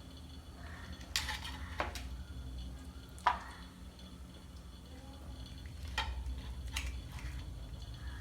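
Metal steamer pot and utensils clinking and knocking, about five short strikes, the sharpest a little over three seconds in, over a low steady hum.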